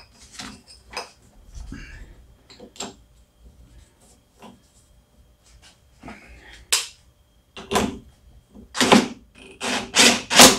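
Metal parts of a lawn mower's self-propel drive pulley clicking and rattling as they are fitted by hand. In the last few seconds a cordless DeWalt impact driver runs in several short, loud bursts, tightening the pulley nut.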